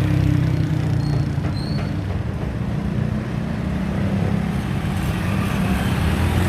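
A motor vehicle engine running steadily nearby, a continuous low rumble.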